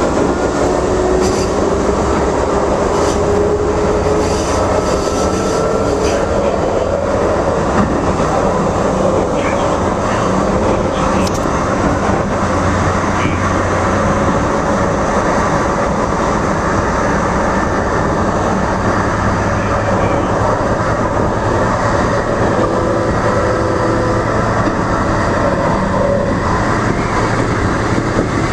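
Light rail train running along the track, heard from the front of the car: a steady rumble of wheels on rail with an electric whine that rises in pitch during the first few seconds, and occasional clicks.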